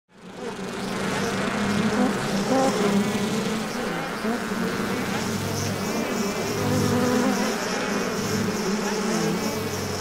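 Intro soundtrack for a title sequence: a steady, dense drone of held low tones with a pulsing high shimmer, fading in over the first second.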